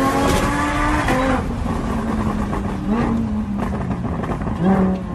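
Car engine revving hard under acceleration, its pitch climbing several times.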